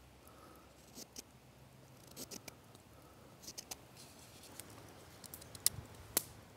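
Pocketknife whittling a small piece of wood: quiet, scattered short scraping cuts and clicks, with two sharper snaps near the end.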